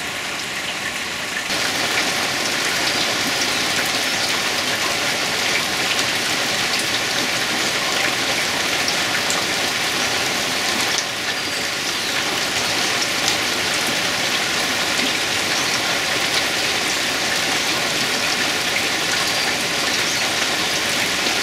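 Steady rain falling on forest foliage, with individual drops ticking close by; it grows louder about a second and a half in.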